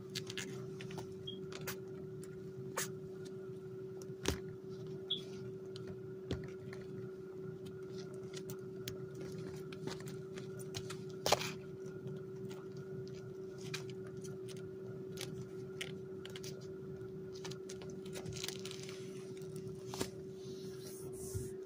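Scattered soft clicks and rustles of kittens crawling over a plastic-backed pad beside their nursing mother cat, at irregular times with the sharpest about halfway through, over a steady low hum.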